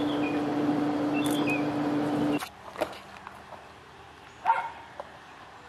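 Outdoor woodland ambience: birds chirping over a steady low hum, which cuts off abruptly a little over two seconds in. Quieter background follows, with a single short animal call about four and a half seconds in.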